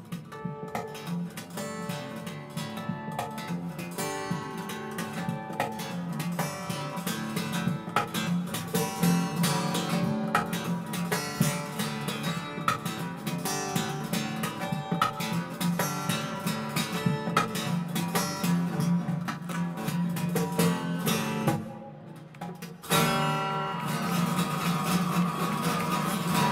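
Solo acoustic guitar played through the stage PA, strummed fast and hard in a dense, rhythmic instrumental. It drops back briefly about 22 seconds in, then comes back loud.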